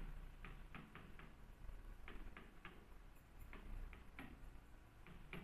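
Faint, irregular ticks of a pen tip tapping on an interactive display screen while writing, two or three clicks a second over a low steady hum.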